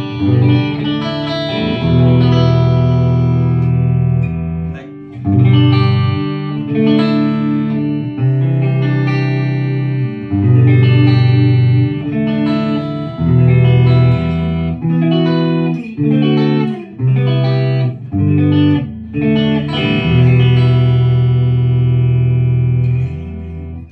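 PRS SE Custom 24 electric guitar played on its neck pickup through a Marshall JCM2000 amp: chords and single-note lines in phrases, with short breaks between them.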